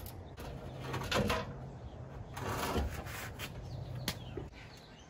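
Several separate knocks and clunks of a car's steel rear bumper and its mounting bolts being handled as the bumper is unbolted and taken off.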